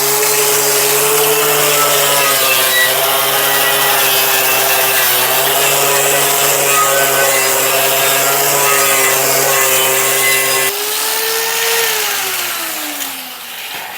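Power tool spinning a polycarbide abrasive wheel against a rusty cast-iron drill press casting: a steady motor hum under a harsh rubbing noise as the rust is stripped. Near the end the wheel comes off the metal and the motor winds down, its pitch falling.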